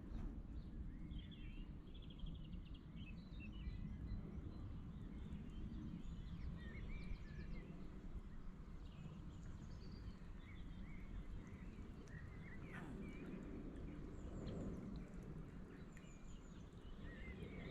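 Small birds chirping and calling in short scattered notes over a steady low rumble of background noise.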